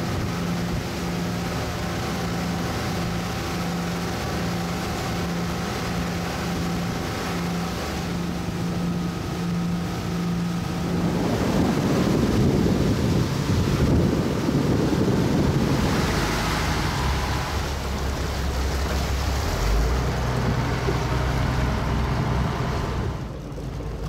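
Boat engine running steadily, with water and wind noise on the microphone; about halfway through, wind buffets the microphone heavily for a few seconds, and a steady low engine drone carries on after that.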